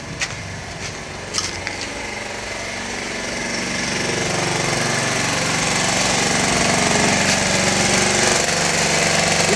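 Small portable generator engine running steadily, growing louder over the first six seconds as it is approached, then holding level.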